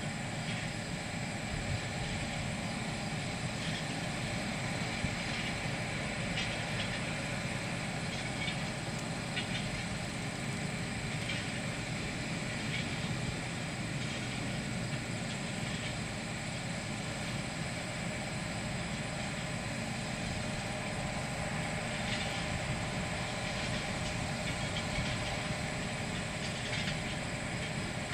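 Railroad track-maintenance machines running on the line: a steady engine drone with a few faint clicks here and there.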